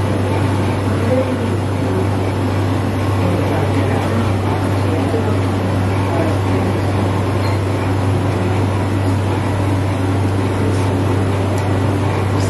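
Steady low mechanical hum under an even background hiss and murmur.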